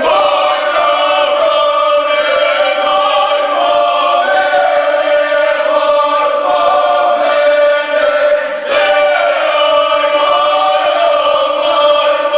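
A small mixed group of men and women singing a folk song unaccompanied, several voices holding long sustained notes together. They break off briefly for breath about eight and a half seconds in.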